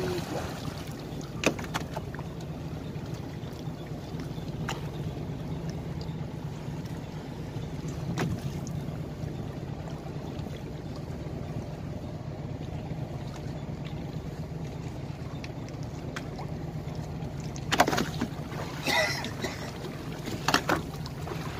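A small fishing boat's motor idles steadily, with water washing against the hull. A few sharp knocks come now and then, and a louder clatter of knocks near the end.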